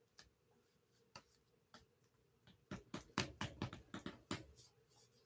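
A quick run of light, sharp clicks and taps, about a dozen in two seconds, starting a little past the middle, after a couple of faint ticks.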